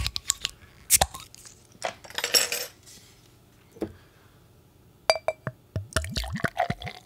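A glass beer bottle being opened, with sharp clicks as the cap is prised off. From about five seconds in, beer glugs and splashes as it is poured from the bottle into a glass, with the glass clinking.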